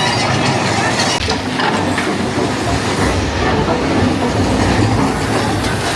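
Train running on its track: a steady rumble with some clatter.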